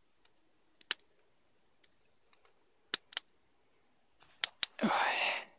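Sticks of split kindling clacking against each other as they are laid one by one on a smouldering fire: about six sharp, separate knocks spread over several seconds. Near the end comes a short breathy rush.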